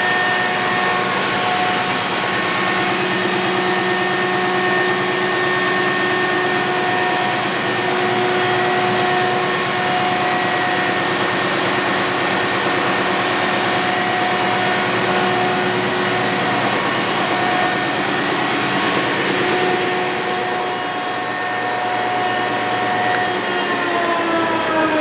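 Butfering 53-inch wide belt sander running at speed: a loud, steady machine noise with a steady whine, overlaid with the hiss of its compressed-air wands. About 21 s in the hiss cuts off, and near the end the whine starts falling in pitch as the sanding head winds down.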